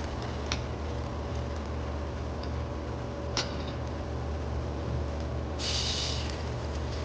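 Two light clicks of a utensil against a cast appe pan as the appe are turned over, over a steady low hum, with a brief hiss near the end.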